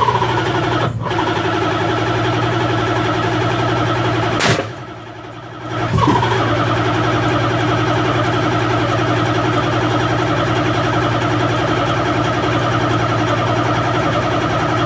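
GM L33 5.3-litre V8 turning over on the starter with the fuel pump off, cranking steadily without firing. The cranking stops about four and a half seconds in and starts again about a second and a half later.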